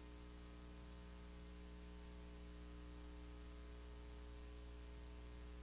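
Quiet room tone: a steady low electrical hum with a faint even hiss underneath.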